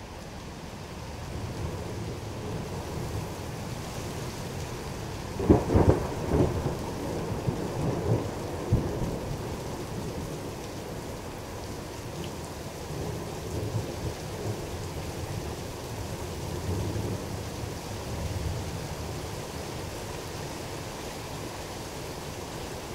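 Thunder over steady rain: a rumble builds, then a cluster of sharp cracks about five to nine seconds in, the loudest near the start of the cluster. It trails off into low rolling rumbles that fade about three-quarters of the way through, leaving the hiss of the rain.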